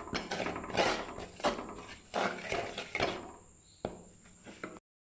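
A spoon stirring and scraping thick spice sauce around a pot, a series of short rasping strokes roughly one every half second to a second, with a sharp click near the end.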